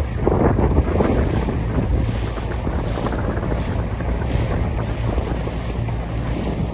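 Wind buffeting the microphone over choppy harbour water, with the wash and slap of small waves; a little stronger in the first second, then steady.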